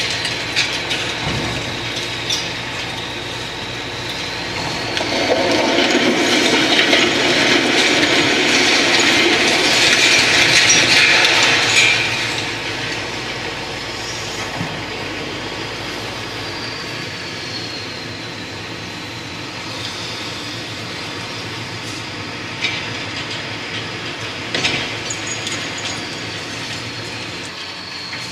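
Part of a concrete-framed building collapsing during demolition: a long crash of falling concrete and debris begins about five seconds in and lasts some seven seconds, followed by lighter, scattered clatters of rubble. A thin high whine sits underneath.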